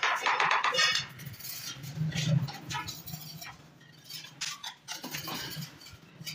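Ceramic tiles clinking and tapping in short, scattered knocks as wood-look skirting tiles are handled and set against the wall. A loud, rough noise fills the first second.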